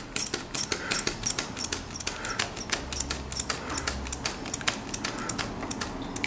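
Quick, irregular clicking, several clicks a second, from a hand vacuum brake bleeder drawing clutch fluid and air out through the bleed hose into a catch bottle with a check valve. Air bubbles are coming through, which may point to air in the system or to air leaking in at the bleed nipple.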